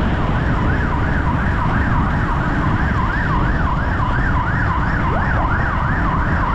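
An emergency-vehicle siren in its fast yelp mode, its pitch sweeping up and down about three times a second without a break, over a steady low rush.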